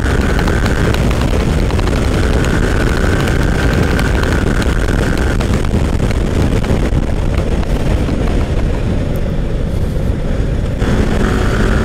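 Yamaha R15M's single-cylinder engine running at speed with heavy wind noise on the microphone, easing off as the bike slows near the end.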